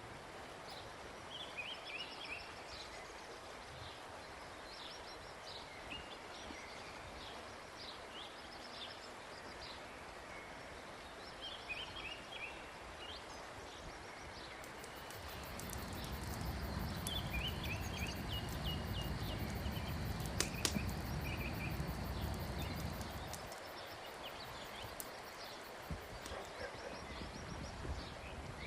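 Outdoor ambience with small birds chirping again and again. About halfway through, a low rumble swells for several seconds and then fades.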